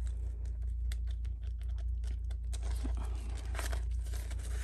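Paper banknotes rustling and a clear plastic binder envelope crinkling as cash is handled and tucked into the pocket, with many small crisp crackles, over a steady low hum.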